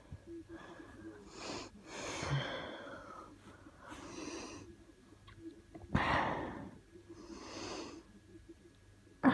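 A person breathing heavily, several noisy breaths in and out. The loudest is a sharp breath about six seconds in.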